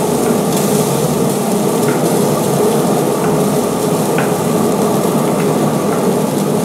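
Small potatoes sizzling in a cast-iron skillet on a pellet grill as they are stirred with a wooden spoon. The sizzle is steady, with a few light clicks of the spoon against the pan.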